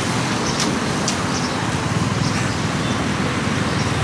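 Steady market din like road traffic, a continuous rumbling wash of noise, with two sharp light clicks about half a second and a second in.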